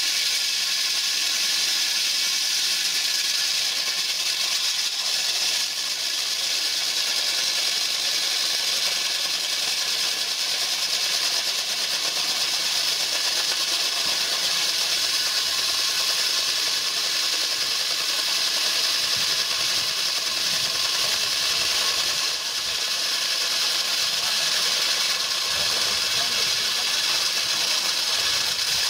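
Hycon handheld hydraulic core drill with a large-diameter diamond core bit cutting into a concrete block: a steady, hissing grind, with the petrol hydraulic power pack's engine running under it.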